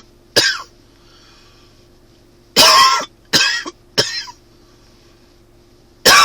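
A man's dry cough, typical of an allergy cough. There is a single cough, then a run of three coughs from about two and a half seconds in, and another cough right at the end.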